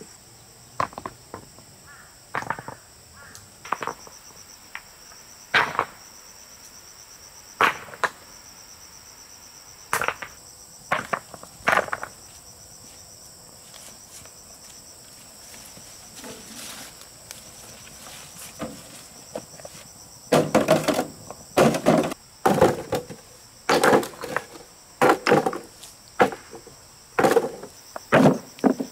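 Sharp knocks and thuds from handwork, a few at a time at first and then coming thick and fast in the last third, over the steady high chirping of crickets.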